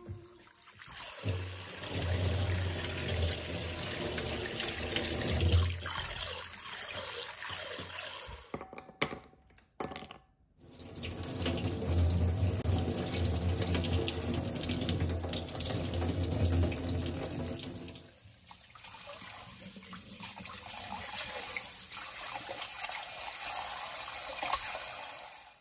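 Kitchen tap water running over hands and into a stainless-steel sink as vegetables are rinsed. The flow breaks off briefly about ten seconds in. From about eighteen seconds it pours, more quietly, into a stainless bowl of shepherd's purse standing in water.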